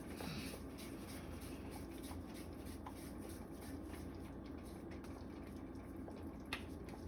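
Pot of soup simmering, with faint scattered bubbling ticks over a steady low background and one sharp click about six and a half seconds in.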